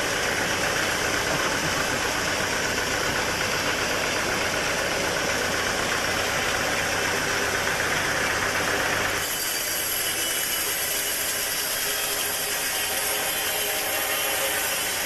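Sawmill machinery running steadily with a deep engine-like drone. About nine seconds in the sound changes abruptly: the low drone drops and a brighter, hissing noise takes over, like a saw running through wood.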